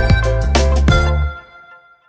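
Background music with a steady beat and bass that fades out after about a second, ending in silence.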